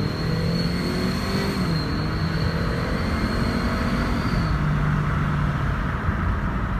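Car accelerating with a fake turbo whistle, a steady high whistle over the engine note that stops about two-thirds of the way through. The engine note steps down in pitch about a second and a half in and changes again as the whistle ends.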